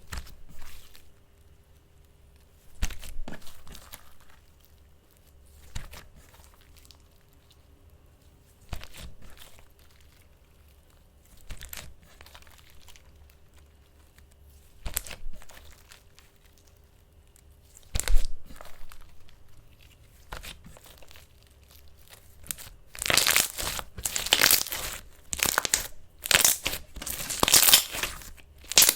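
Ink slime being pressed and squeezed by hand, with single short squishes about every three seconds, then rapid, louder continuous kneading over the last several seconds.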